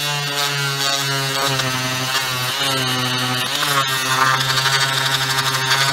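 Oscillating multi-tool running with a steady buzzing hum while its microfiber-wrapped blade buffs the aluminium cylinder head. It shuts off right at the end.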